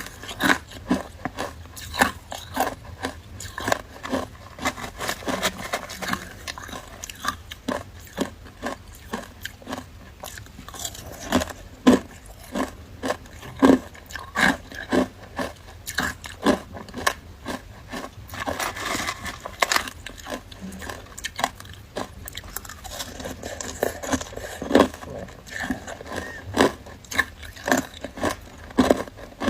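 Close-up crunching and chewing of matcha shaved ice: a steady, irregular run of sharp crunches, a few each second.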